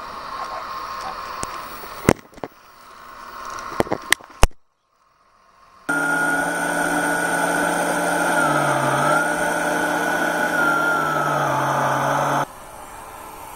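RC model excavator's hydraulic pump running with a steady whine, its pitch dipping briefly twice as the load changes, then cutting off suddenly. Before it, a model truck's faint motor hum with a few sharp clicks, and a short gap of silence.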